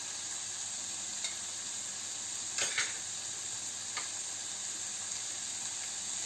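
Chicken pieces and chopped onion frying in a nonstick pan on a low flame, giving a steady sizzle. A few light knocks come through it, the loudest a quick pair about two and a half seconds in.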